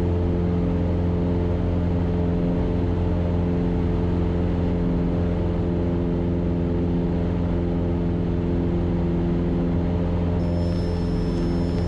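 Cessna 172K's four-cylinder Lycoming engine and propeller running steadily at climb power just after takeoff, a constant drone heard inside the cabin.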